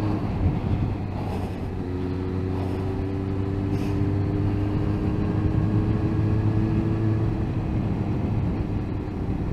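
Sport motorcycle's inline-four engine running at a steady cruise, with wind and road noise over it. The engine note holds a steady pitch, rising very slightly from about two seconds in.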